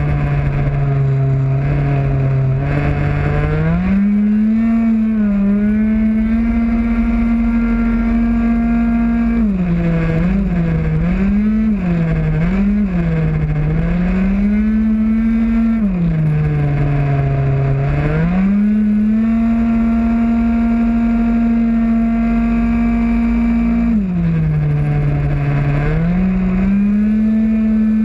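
A 50cc two-stroke racing scooter engine at full race pace, recorded onboard: the note holds high and steady on the straights and drops away through the corners. In the middle it dips and rises several times in quick succession through a run of bends, then climbs back to its high steady pitch.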